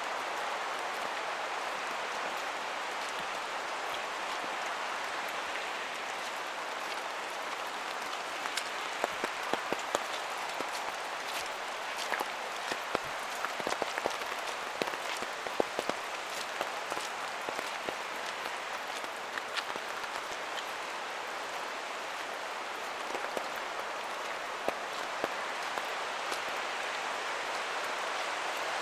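Steady rain hiss with many sharp drops hitting close by, the drops thickest in the middle of the stretch.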